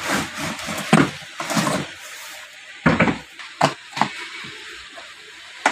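A cardboard box and a hard plastic tool carry case being handled and opened: scraping and shuffling, then several sharp clicks and knocks.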